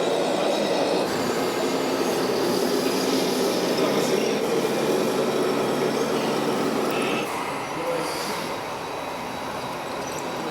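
Small electric motors and gearboxes of radio-controlled model trucks and tractors running under load, a steady whirring hum that drops in level about seven seconds in.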